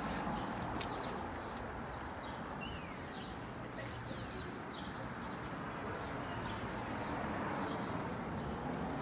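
Small birds chirping in short, scattered calls over a steady city street hum.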